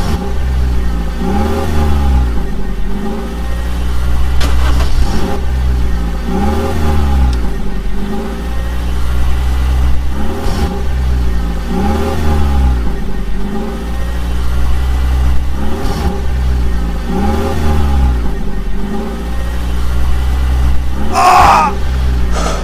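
A motor running and revving up and down in a regular repeating cycle, with a short hiss near the end.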